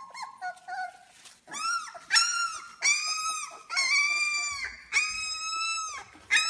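Two-week-old Labrador puppies whining and crying: faint short squeaks at first, then from about a second and a half in, a run of five or six high, drawn-out cries, each up to about a second long.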